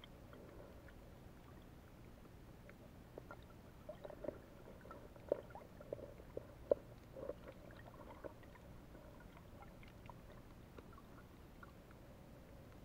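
Underwater ambience picked up by a submerged camera: a faint steady low rumble, with a scatter of short sharp clicks and pops from about three to eight seconds in.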